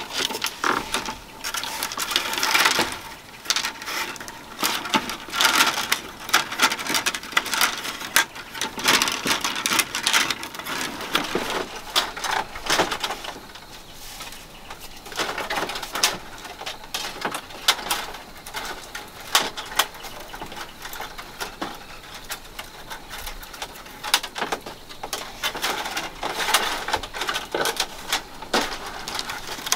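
Thin split-bamboo strips clicking, rattling and scraping against each other and the bamboo slat floor as they are woven by hand, in quick irregular clusters of light clicks.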